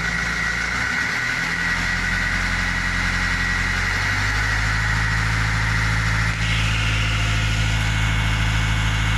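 A vehicle's engine idling steadily, heard from inside the cab. Its low hum grows fuller about four seconds in, a high whine runs under it, and there is one brief click about two-thirds of the way through.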